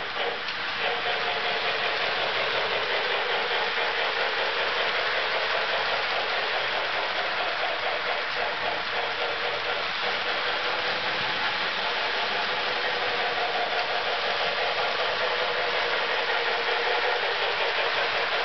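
Lionel model steam locomotive and its cars running steadily around three-rail track: motor running and wheels rolling on the metal rails, with a fast, even clatter.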